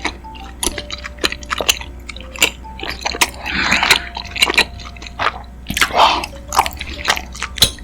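Close-miked chewing and biting of chewy rice cakes in sauce: a rapid run of wet, sticky mouth clicks with a couple of longer squishy smacks.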